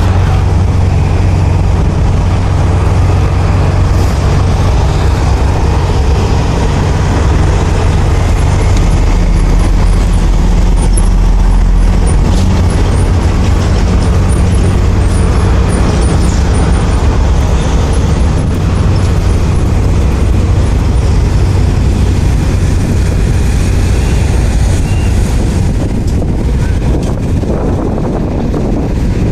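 Heavy truck engine running steadily, a loud low rumble.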